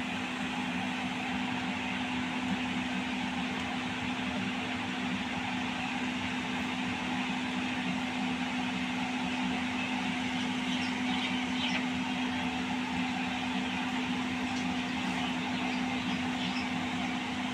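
Dough balls for gulab jamun frying gently in oil in a kadhai on a low gas flame: a steady sizzle with a few faint pops, over a constant low hum.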